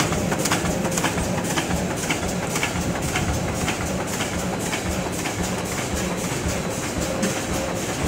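FD-1080x640 roll-fed flatbed die-cutting and creasing machine with hole stripping, running: a steady mechanical hum and clatter with rapid, regularly repeating clicks.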